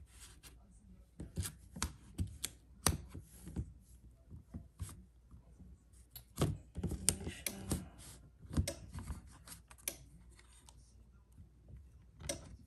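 Sublimation paper and a dry erase board being handled and lined up by hand: irregular taps and clicks with short bursts of paper rubbing and sliding.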